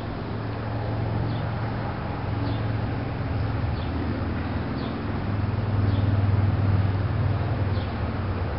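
Outdoor ambience: a steady low hum that grows louder about five seconds in and eases off near the end, with a small bird giving short high chirps about once a second.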